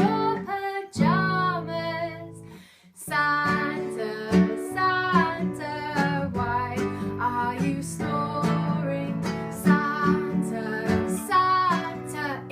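A children's Christmas song: a woman singing over strummed guitar, with a brief pause between phrases about two to three seconds in.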